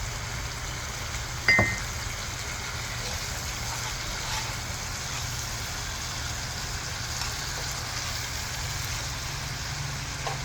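Steady low rumble with a faint hiss, broken by a single sharp click about a second and a half in.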